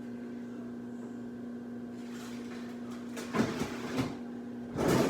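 Things being handled and set down: a short clatter and rustle about three and a half seconds in and another near the end, over a steady electrical hum.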